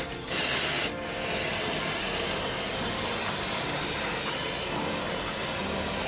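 Aerosol cleaner sprayed into a scooter's CVT housing: a short burst, then a long, steady hiss of spray lasting about five seconds.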